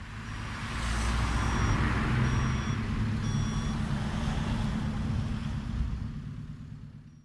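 Street traffic: cars passing at a junction over a steady low engine rumble, fading in at the start and out near the end. Over it, a vehicle's reversing beeper sounds about four times, roughly a second apart, in the first few seconds.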